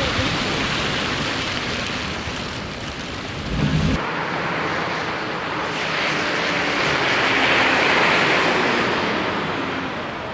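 Steady noisy roar with heavy low rumble that cuts off about four seconds in, then the hiss of a passing vehicle's tyres on the winter highway, swelling to a peak near the end and fading.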